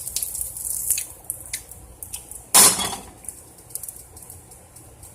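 Kitchen utensils clicking and scraping against a pan and dishes while warmed beef is moved onto toasted bread. There are scattered light clicks, and one louder scrape comes about two and a half seconds in.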